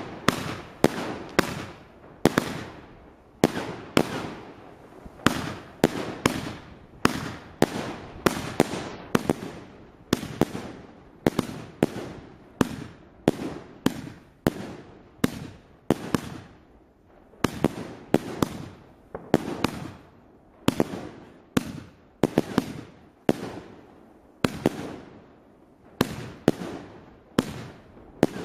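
A 2-inch (50 mm), 49-shot firework cake, RFC Royal Fireworks 'Atlas', firing shot after shot: sharp bangs at about one to two a second, each tailing off before the next.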